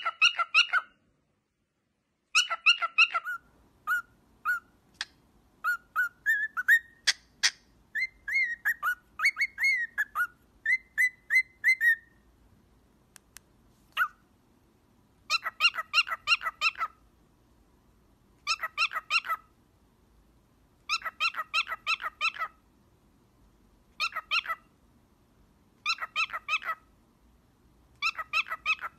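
Cockatiel whistling its song. First comes a run of short whistled notes and rising slurred phrases. After a brief pause come repeated bursts of quick notes, each about a second long, every two to three seconds.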